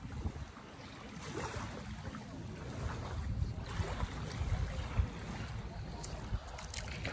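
Wind buffeting the microphone in uneven gusts, over the gentle wash of small waves at the shoreline.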